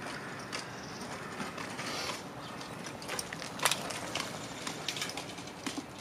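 A bicycle ridden across a railway level crossing: irregular light clicks and rattles, thickening and growing louder about halfway through as it comes close, over faint steady background noise.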